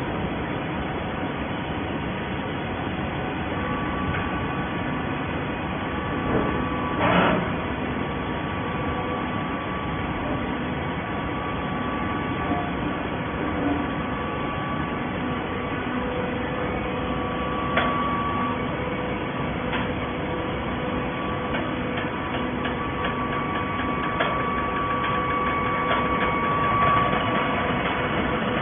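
Waste paper baler machinery running: a steady mechanical hum with a few sharp clanks and knocks, the loudest about a quarter of the way in.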